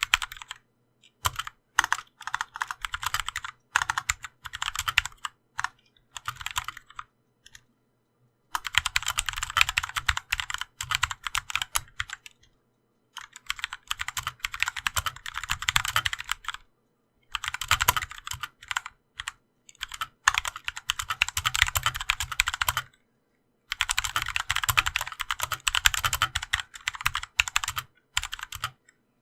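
Typing on a GMMK Compact mechanical keyboard fitted with Kailh Pro Purple switches and rubber dampener O-rings: rapid runs of keystrokes lasting one to three seconds, separated by short pauses.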